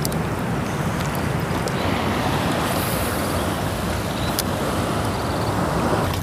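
Wind buffeting the microphone over water lapping against a kayak's hull, a steady rushing noise with a light click about four seconds in.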